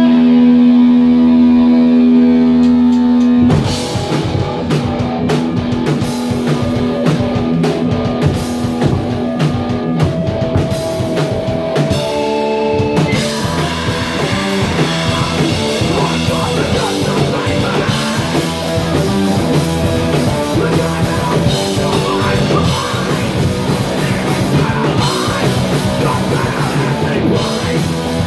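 Live rock band playing: electric guitars, bass and a drum kit. A single held note rings steadily for the first few seconds, then the full band crashes in about three and a half seconds in and drives on loudly. A vocalist sings or shouts over them later on.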